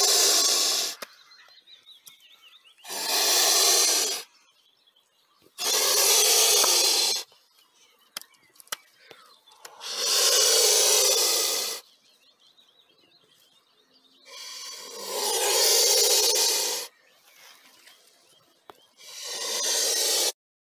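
Mute swan hissing as a threat display: about six loud hisses of one to two seconds each, a few seconds apart.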